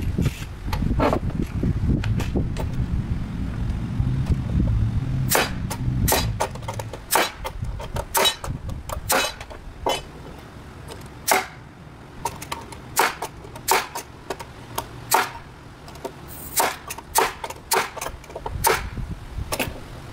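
A string of sharp, irregular taps and clicks, metal hand tools striking the nails in old deck boards, about one to three a second from about five seconds in. Wind rumbles on the microphone over the first several seconds.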